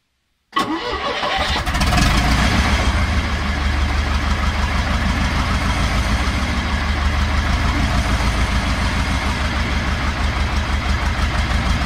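Gardner LW diesel engine cold-starting about half a second in, catching and building over the next second or so, then running at a steady idle with an even low beat.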